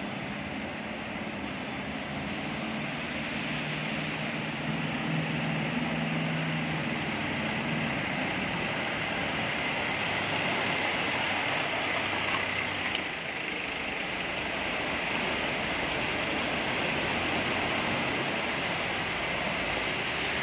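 An SUV's engine running as it drives slowly through floodwater, over a steady rush of flowing water.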